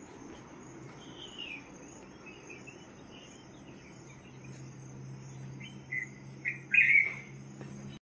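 Birds calling over a steady high drone of insects such as crickets: a falling call about a second in, then a run of louder chirps near the end. A low steady hum comes in underneath during the second half.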